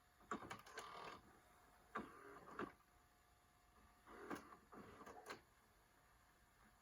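GE VG2051 VHS VCR's tape mechanism clicking and whirring in three short bursts, the transport shifting and engaging.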